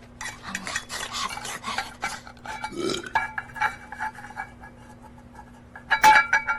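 Cartoon soundtrack sound effects: a run of quick clicks and clatter over a faint steady hum, with a louder brief sound about six seconds in.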